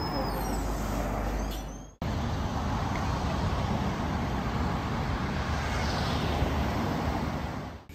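City street traffic noise: a steady wash of passing cars and road rumble. It drops out suddenly about two seconds in, resumes at once, and fades away near the end.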